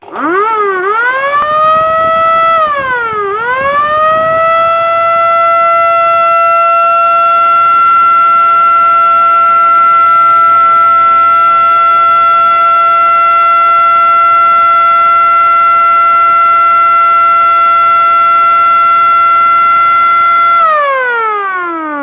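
Small electric motor-driven air-raid siren with a flared aluminium horn, winding up into a loud wail. About three seconds in the pitch dips once and climbs again, then holds steady. Near the end it winds down, its pitch sliding lower as the rotor slows.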